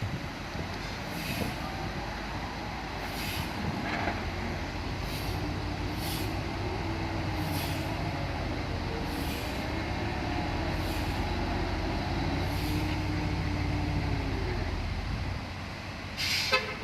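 Heavy diesel engine running, its pitch rising and falling with load, with short hissing bursts every second or two. The engine note drops away about a second before a sharp clatter near the end.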